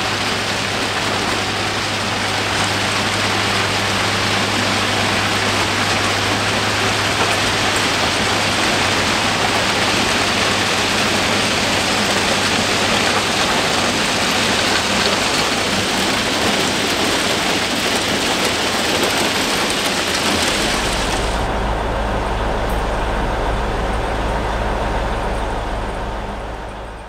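Railway track maintenance machine working: a steady engine hum under a dense, even rushing noise. About 20 seconds in the hum drops to a deeper tone and the rushing thins out, then the sound fades away at the end.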